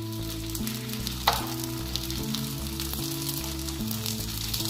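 Kerala parotta frying in oil on a hot pan, with a steady sizzle. A single sharp click about a second in. Background music with held notes underneath.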